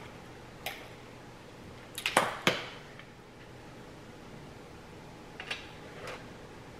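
Tableware being handled at a table: a few sharp clicks and knocks, the loudest a quick cluster of three about two seconds in, with lighter ones near the end, over a steady low hum.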